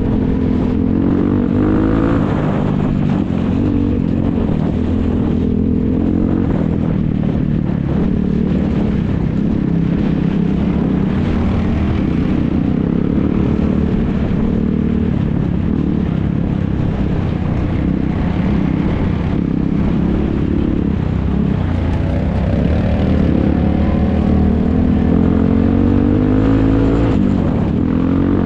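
ATV (quad bike) engines running loudly, their pitch rising and falling as they rev, climbing notably near the start and again toward the end.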